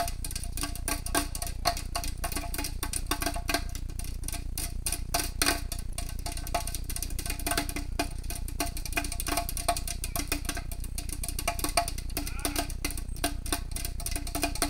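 Several hammers driving nails into a wooden beam at once: a fast, irregular clatter of many overlapping strikes, with the nails and hammer heads ringing briefly on each blow.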